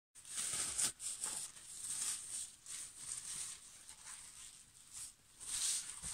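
Gloved hands rubbing and pressing wet wool through a thin plastic bag during wet felting: irregular swishing and crinkling of the plastic, with louder strokes about a second in and near the end.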